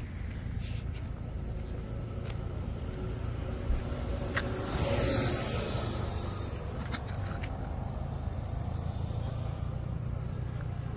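Road traffic: a steady low rumble, with one vehicle passing close about five seconds in, its rush swelling and fading, and a few light clicks.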